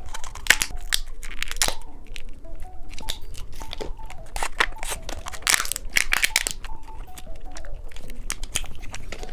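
Plastic candy packaging being crinkled and torn open, a run of irregular sharp crackles.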